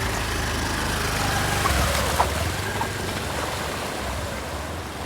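Floodwater rushing steadily, with a low rumble underneath.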